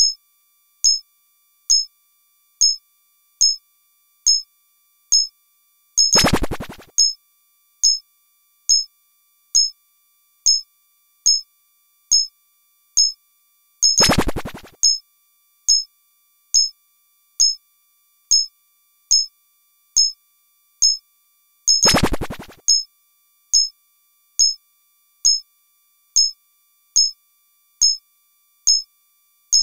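Looping synthesized electronic sound: a short high beep a little more than once a second, with a louder, fuller synth hit about every eight seconds.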